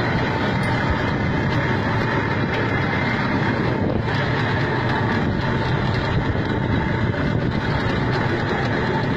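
Boat engine running steadily under way, with wind on the microphone.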